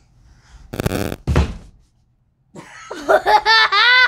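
A dull thump with a rustle about a second in, then a young girl laughing loudly in high, squealing peals from about two and a half seconds in.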